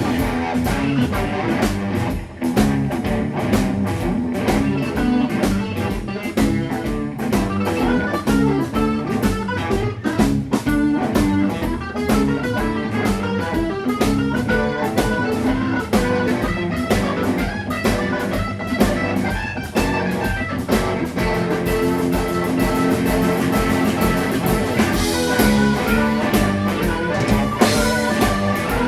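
Blues-rock band playing an instrumental break, guitar leading over a drum kit.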